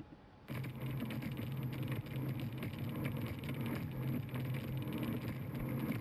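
Speedboat running at speed: a steady engine drone under a rush of wind and water noise on the boat-mounted camera's microphone, starting about half a second in.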